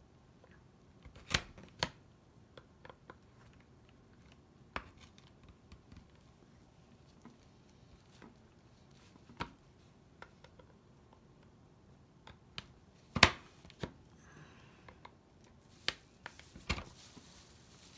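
We R Memory Keepers Sew Ribbon blade pushed through the slots of its plastic guide plate, punching slits in a sheet of paper: a series of sharp clicks spaced irregularly a few seconds apart, the loudest about 13 seconds in.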